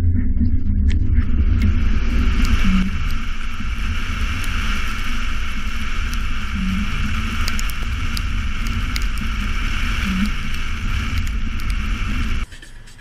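Subaru Forester driving on a wet road, heard from a camera mounted on its roof: a heavy wind rumble on the microphone and a steady hiss of tyres and spray on the wet tarmac, with scattered light ticks. The sound cuts off abruptly near the end.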